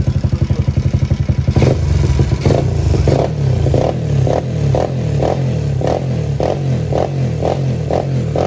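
Small single-cylinder four-stroke motorcycle engine running with a fast steady beat. About one and a half seconds in the sound changes abruptly to a rougher run with sharper strokes coming about three every two seconds.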